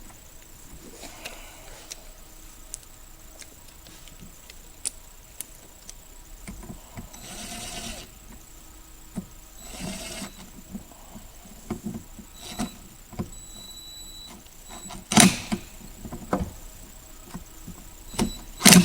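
Hand tools and car parts being handled: scattered clicks, scrapes and rustling, with two loud sharp knocks, one about fifteen seconds in and one near the end.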